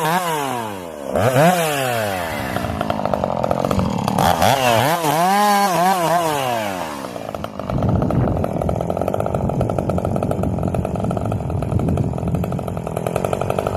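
Ported, piped Husqvarna Rancher two-stroke chainsaw revved up and down several times, its pitch rising and falling, for about the first seven seconds. It then settles into steady, rough running with no more pitch swings.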